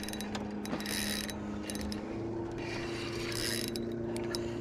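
Spinning reel being cranked to bring in a hooked fish, its gears whirring and ticking, with two short hissing bursts. A steady low hum runs alongside and changes pitch about two seconds in.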